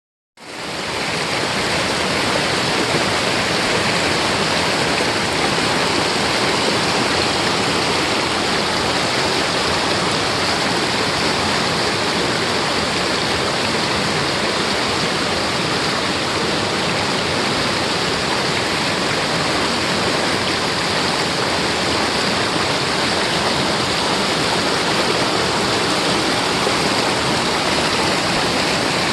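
Rushing water of a mountain valley stream, a steady, even rush that comes in abruptly at the start and holds unchanged.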